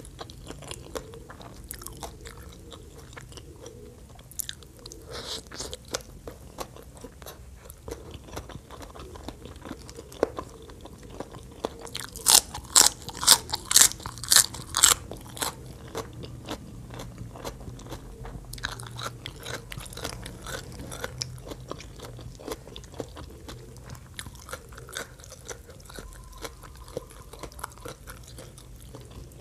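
Close-miked chewing and crunching of Thai papaya salad, with a run of loud, crisp crunches about halfway through.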